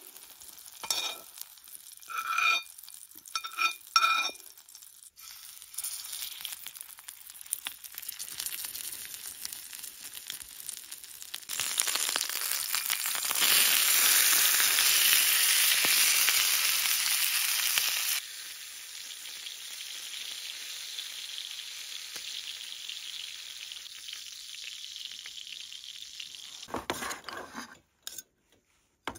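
Frying in a small cast-iron pan: a metal utensil clinks against the pan about four times while onions sizzle. About twelve seconds in, fatty meat goes to the hot pan and a loud sizzle rises, then settles to a steady frying hiss. Near the end comes a few knife strokes on a wooden cutting board.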